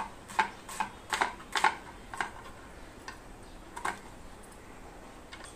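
Kitchen knife cutting cabbage: a series of short, sharp, irregular chopping taps, most of them in the first two seconds and one more just before four seconds.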